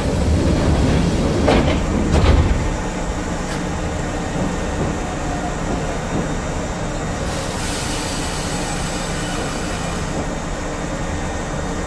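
Commuter train car standing at a station: its sliding doors open with a rumble and two thumps in the first two or three seconds. Then comes the car's steady running noise, with a hiss of air from about seven to ten seconds in.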